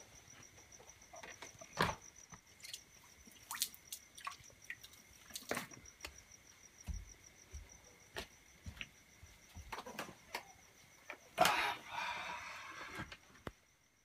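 Crickets chirping steadily at night, with scattered knocks and clicks and a louder rustling scrape about eleven seconds in.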